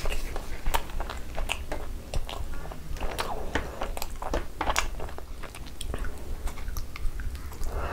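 Close-miked chewing and biting of Indian sweets, with many irregular wet mouth clicks and smacks.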